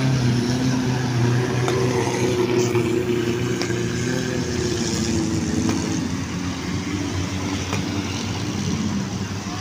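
Off-road jeep engines running as the jeeps drive through a shallow, rocky river, with a wide hiss of splashing water and wind under the engine note. The engine note is strongest at first and eases and drops slightly about halfway through.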